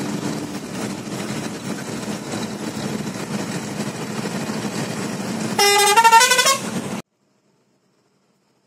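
Steady engine and road drone inside a moving truck's cab, then about five and a half seconds in a horn blares for about a second, its pitch stepping upward over several notes. The sound cuts off suddenly just after.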